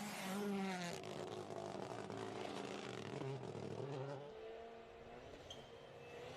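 Rally car engine on a stage. Its pitch drops sharply over the first second as it slows, then varies, and it climbs steadily over the last two seconds as the car accelerates.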